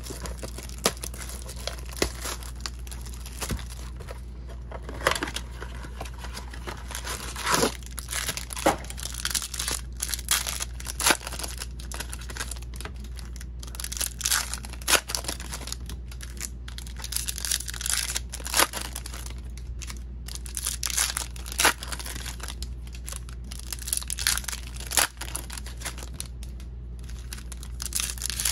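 Plastic wrapping of Topps 2020 Series 2 baseball card blaster boxes and packs being torn open and crinkled by hand: irregular rips and crackles throughout, over a steady low hum.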